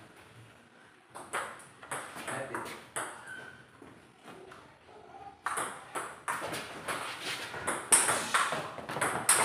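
Table tennis ball clicking off the paddles and table: a few scattered ticks at first, then from about five and a half seconds a quick run of ticks of a rally, two to three a second.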